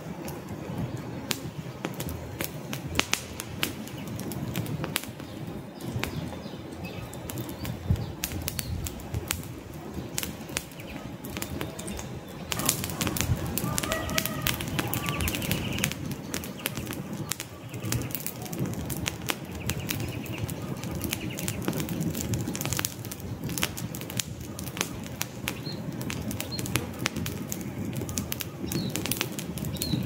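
Wood campfire burning, crackling with many sharp pops over a steady low rushing of the flames.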